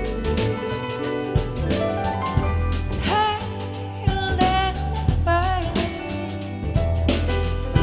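Soul-jazz song playing: a sung melody over bass, drum kit and keys.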